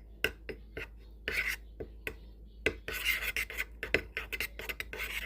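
A utensil stirring a thick mayonnaise-based sauce in a bowl, with repeated scraping and clicking against the bowl, busier in the second half.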